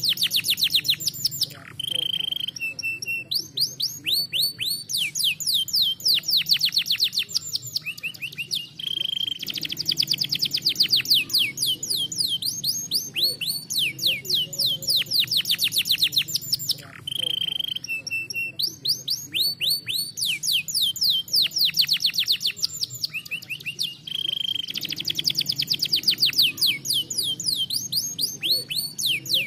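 Domestic canary singing a continuous song: rapid rolling trills of fast, downward-sweeping high notes, broken by short held whistles. The same run of phrases comes round again about every 15 seconds.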